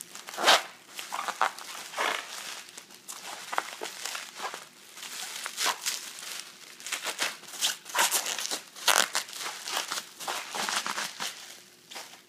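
Bubble wrap and plastic packaging crinkling and rustling in irregular handfuls as it is unwrapped by hand.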